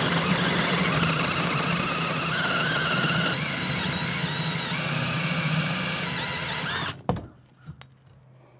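Power drill spinning a hole saw through exterior wall siding and sheathing: a steady motor hum with a high whine from the cutting. It stops abruptly about seven seconds in, followed by a few faint knocks.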